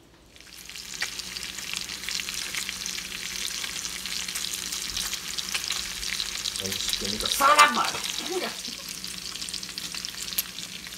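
Bacon sizzling and crackling in hot grease in a stainless steel skillet, rendering its fat, while a plastic spatula stirs it. One louder squeak comes about seven and a half seconds in.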